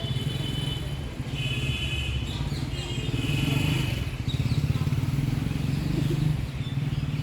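An engine running steadily with a low, even, pulsing hum, with a few short bird chirps over it about two and three seconds in.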